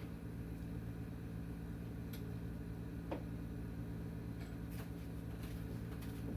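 Low steady electrical-sounding hum with a few faint scattered clicks and light taps, as from small handling noises.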